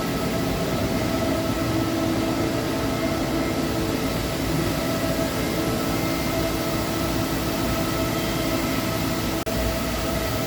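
Parpas Brave CNC floor-type horizontal boring mill running under power: a steady machine hum with several steady tones. It cuts out for a moment about nine seconds in.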